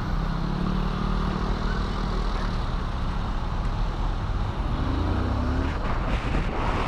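Road traffic: engines of cars and vans running close by over a steady rush of road noise, with one engine's pitch rising about five seconds in as it speeds up.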